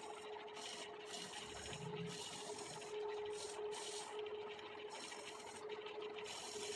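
Woodturning lathe running with a steady hum while a hand tool scrapes the spinning wooden bangle blank in short, irregular strokes.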